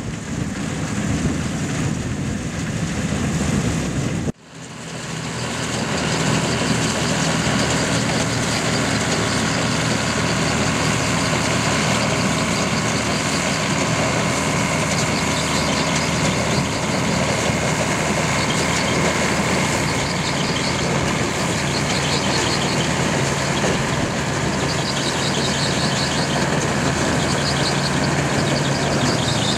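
Old Perkins diesel engine of a 1963 Aktiv combine harvester running steadily under working load. There is wind on the microphone until a sudden cut about four seconds in.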